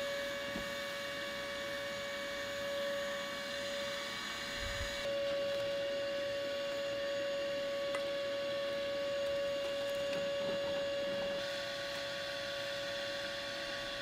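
Shop vac motor used as a blower, running steadily with an even high whine and rush of air as it forces air into a charcoal furnace.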